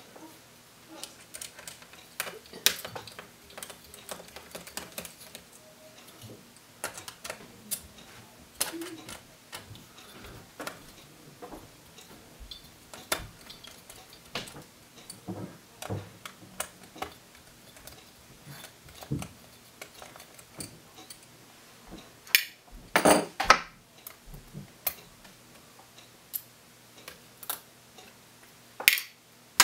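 Small Phillips screwdriver backing out the tiny screws that hold a laptop's LCD panel, with scattered light metal and plastic clicks and ticks, and a louder cluster of clatter about three-quarters of the way through as screws and parts are handled.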